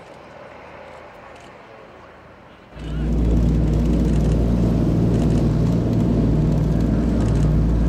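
Lockheed Super Constellation's Wright R-3350 radial piston engines. At first they are heard distantly as the airliner rolls on the runway. About two and a half seconds in, the sound changes suddenly to a loud, steady engine drone with a deep hum, recorded on board the aircraft.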